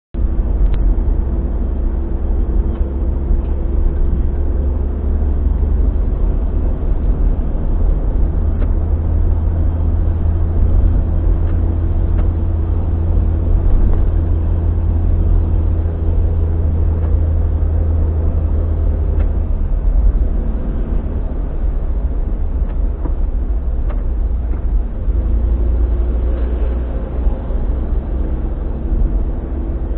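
Car driving at a steady speed, heard from inside the cabin: a deep, continuous rumble of engine and road noise with a faint engine hum above it.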